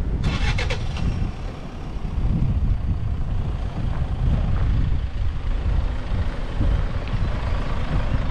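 A vehicle driving: a steady low rumble of engine and tyres, with a short run of rattling clicks just after the start.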